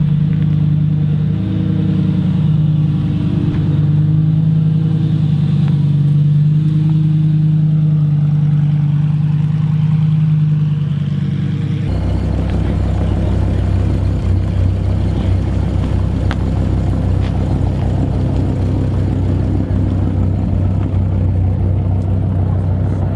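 Classic car engines running, loud and close. A steady, even engine note holds for about the first half, then it switches abruptly to a deeper, rougher rumble.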